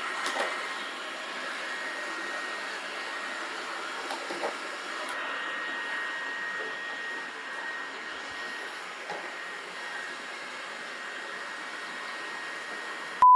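Lifro RX9 Plus robot vacuum cleaner running while it cleans: a steady whir of its suction fan and brushes with a thin high whine, and a few faint knocks. A short, loud beep sounds right at the end.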